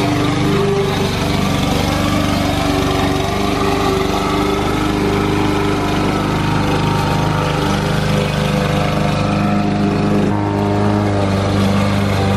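Lawn mower engine running steadily under load while mowing; its pitch shifts slightly about ten seconds in.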